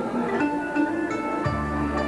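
Live instrumental accompaniment led by an electronic keyboard, playing an interlude between sung phrases, with held melody notes and low bass notes coming in about a second and a half in.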